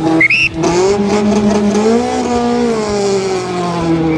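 Rally car engine held at high revs at the start line, its pitch rising a little then easing back as the driver works the throttle before the launch. A brief high chirp comes just after the start.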